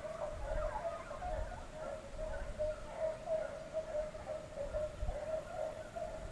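A pack of deer hounds baying in the distance on a running chase, their voices overlapping into a continuous wavering cry. Wind buffets the microphone with low rumbles.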